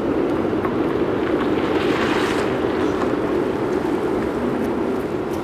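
Steady city street noise: a constant low rumble like distant traffic, with a short swell of hiss about two seconds in.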